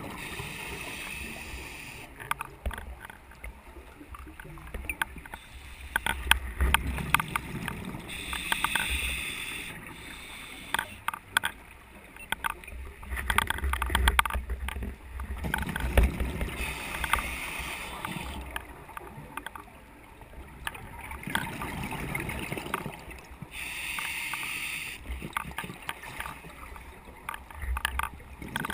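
Underwater scuba diving sounds: a diver's exhaled regulator bubbles hissing in bursts about every seven to eight seconds, over a stream of quick sharp clicks from a rattle on the camera.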